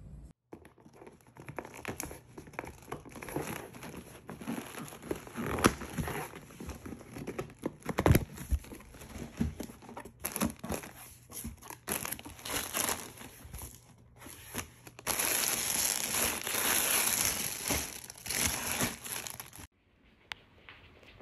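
Plastic packaging bag crinkling and rustling as a parcel holding sandals is unpacked by hand, with a few sharp knocks from handling. About fifteen seconds in, the rustling turns steadier and louder for a few seconds, then cuts off suddenly.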